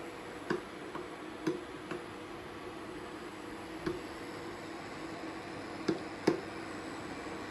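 A fork tapping and clinking against a pan while stirring boiling noodles to keep them from sticking together: a quick run of four light knocks about half a second apart, one more a little later, and two close together near the end, over a steady background hiss.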